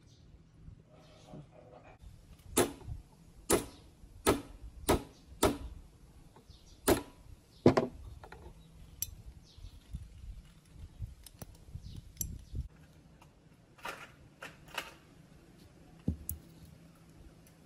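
Sharp metal knocks and clicks from the parts of a steel ratchet tie-down strap buckle being fitted together, about seven loud ones in the first half at uneven spacing. A few fainter clicks follow near the end.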